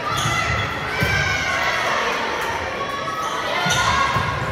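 Volleyball rally in a gymnasium: a few dull thuds of the ball being hit, with players calling and spectators shouting and cheering.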